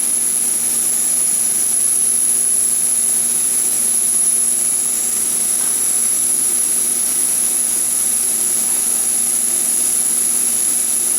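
EMCO Mill E900 CNC milling machine running steadily while its three axes travel to their reference points, an even mechanical hiss with a constant high-pitched whine and a low hum.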